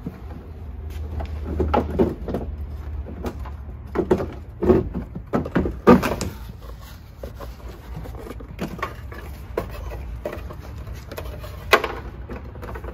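Knocks and clatter of a 2003–07 Chevrolet Silverado's old factory side mirror being handled and lifted off the door after its mounting nuts are removed, with the loudest clunks around four to six seconds in and one sharp knock near the end.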